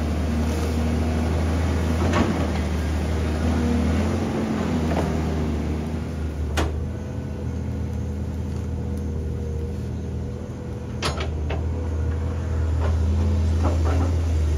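A heavy machine's diesel engine running at a steady speed, with a couple of sharp knocks.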